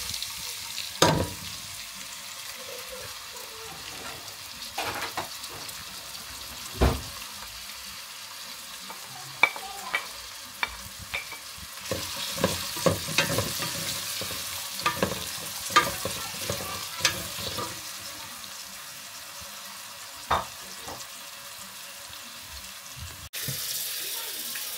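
Sliced onions sizzling as they fry in a stainless steel pot, with a wooden spoon knocking and scraping against the pot as they are stirred; the knocks come thick and fast in the middle. Near the end a tap runs into a steel sink.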